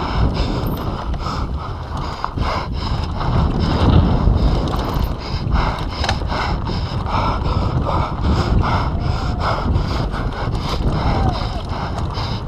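Wind buffeting a GoPro's microphone as a mountain bike runs fast down a dirt trail, with tyre noise on the dirt and frequent clattering knocks from the bike over bumps.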